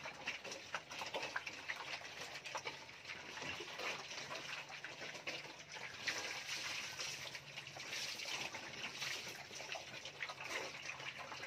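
A group of piglets slurping and champing at wet feed in a shared pan: a dense, irregular run of small wet smacks and clicks. About six seconds in, liquid is poured over the feed.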